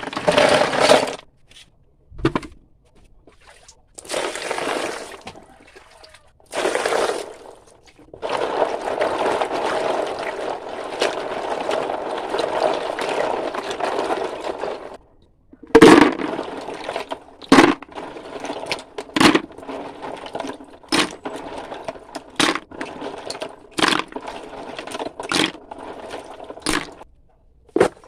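Water pouring and splashing in bursts, then a longer steady pour, followed by a series of sharp knocks about every second and a half.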